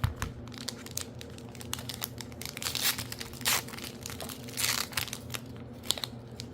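Foil booster pack wrapper crinkling and being torn open by hand, in a run of crackly rustles with a few louder tearing rips in the middle.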